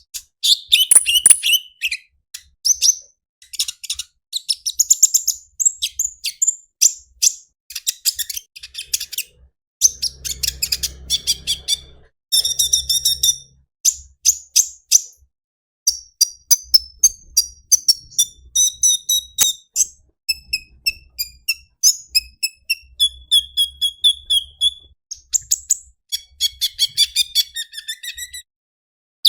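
Sunbird singing: rapid runs of high-pitched chirps and twittering trills, broken by a few short pauses.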